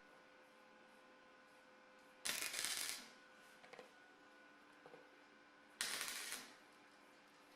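Two short hissing bursts, each well under a second, about three and a half seconds apart, over a faint steady hum.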